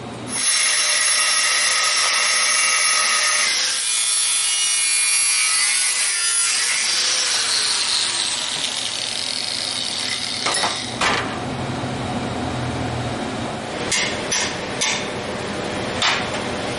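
Angle grinder with a cut-off wheel cutting stainless steel exhaust header tubes: a steady high whine and rasp for about ten seconds. A few sharp hammer knocks on a tube follow near the end.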